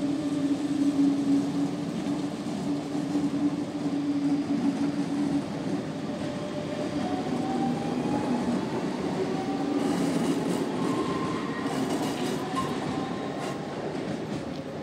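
DB Class 425 electric multiple unit pulling away, its electric drive whining in tones that rise in pitch from about halfway through as it gathers speed, over a steady low hum.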